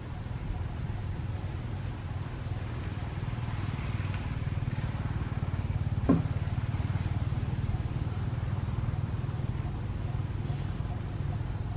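Steady low hum of an engine running, with one sharp click about six seconds in.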